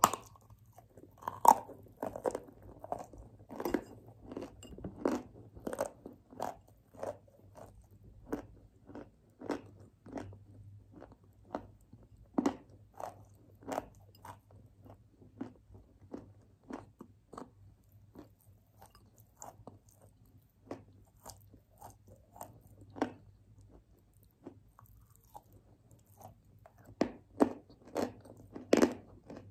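A person biting into and chewing chunks of dry Ural clay close to the microphone: a sharp crunch at the first bite, then a long run of short, crisp crunches as the clay is ground between the teeth. The crunches thin out in the middle and come thick and loud again near the end.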